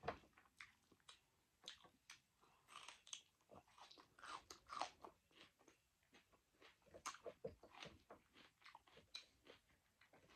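A person chewing a mouthful of rice and cooked leafy greens, with soft, irregular smacking and crunching mouth sounds.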